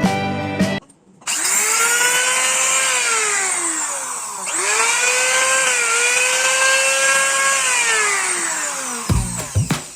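Electric wood trimmer (compact router) motor switched on and spinning up to a steady high whine, winding down about halfway through, then spinning up again and winding down near the end.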